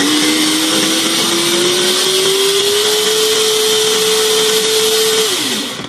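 Electric glass-bowl food chopper (called a meat grinder) running, its blades mincing lemongrass, ginger, garlic and onion. The motor whine climbs in pitch over the first few seconds, holds steady, then winds down as it is switched off near the end.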